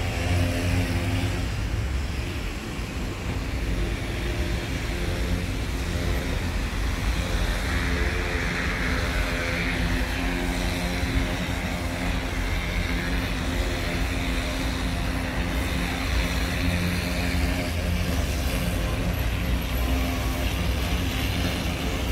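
Engine noise running steadily at an unchanging pitch, the continuous hum of motor vehicles or machinery, with a broad hiss swelling in for a few seconds about a third of the way in.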